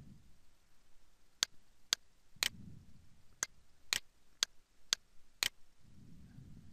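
Computer mouse button clicking: a run of eight sharp clicks, about two a second, starting about a second and a half in.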